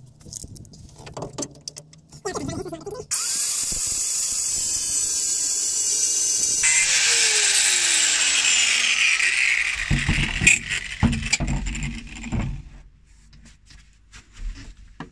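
Bosch angle grinder with a thin cutting disc cutting a groove into the edge of a seized rear-beam mounting bolt head. It starts about three seconds in and runs steadily with a loud hiss. From about seven seconds its pitch falls, there are knocks and clatter, and it stops a couple of seconds before the end.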